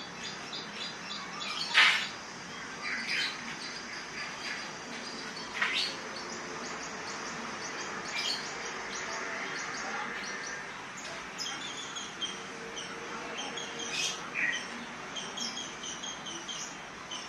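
Orange-headed thrush calling in short sharp notes spaced a few seconds apart, the loudest about two seconds in, with fainter chirping in between.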